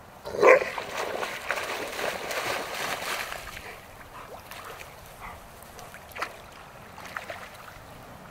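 A dog barks once, loudly, about half a second in, followed by about three seconds of water splashing and sloshing as an adult Labrador wades in the pond; after that only faint small splashes and rustles.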